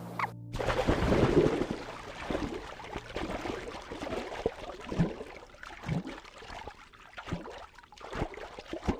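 Water splashing and gurgling in irregular bursts, loudest over the first couple of seconds and then quieter.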